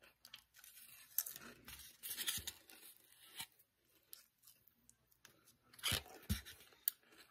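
Close-up crunching of Grippo's barbecue potato chips being chewed, in irregular crackly bursts, with a louder low mouth sound near the end as ice cream is taken in.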